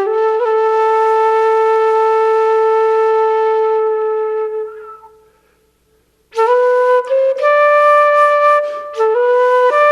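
Solo wind instrument of the flute kind playing a slow Irish tune: a long held note that fades away about five seconds in, a brief silence, then the melody picks up again with several short notes.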